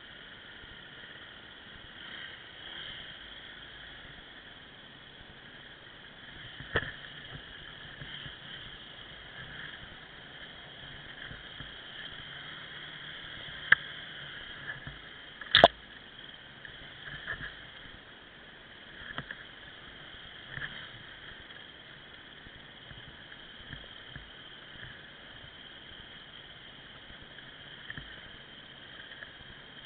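Muffled, steady noise of an off-road motorcycle ride picked up by a camera mounted on the bike, with a few sharp knocks as the bike jolts over the trail. The loudest knock comes about halfway through.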